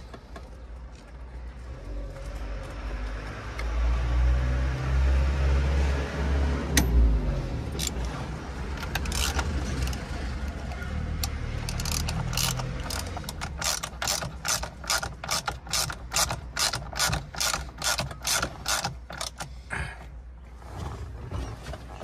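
A ratchet wrench clicking in a quick even run of strokes, about two or three a second, for several seconds in the second half, while the steering wheel is being refitted. Before that come low rumbling and rubbing noises as parts are handled.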